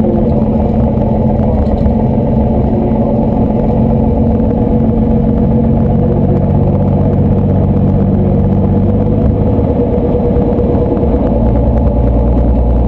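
Slingsby T-67 Firefly's piston engine and propeller running at low taxiing power, heard from inside the cockpit as a steady drone. Its lowest notes shift slightly near the end.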